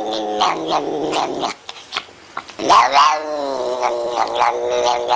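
Tortoiseshell cat yowling in long, drawn-out cries while being brushed. The first cry falls in pitch and fades about a second and a half in; after a short pause a louder cry rises, dips and carries on.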